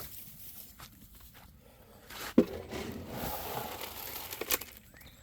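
Footsteps and rustling, with scattered light clicks and one sharp knock a little before halfway.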